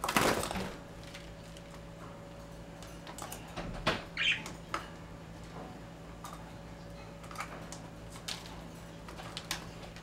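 Budgies bathing in a shallow plastic tub of water: a loud burst of wing-flapping and splashing at the start, then scattered smaller splashes and wing flicks, the sharpest just before four seconds in.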